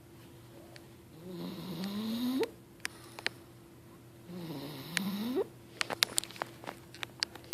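Snoring: two drawn-out snores about three seconds apart, each rising in pitch as it goes. Near the end comes a quick run of sharp clicks.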